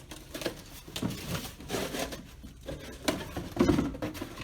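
A box being opened by hand: irregular rustling, rubbing and light knocks as it is handled.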